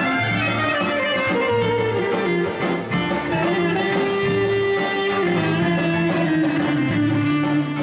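Live Greek folk dance music: a clarinet and a violin playing the melody with long gliding notes, over a plucked-string accompaniment and a repeating bass line.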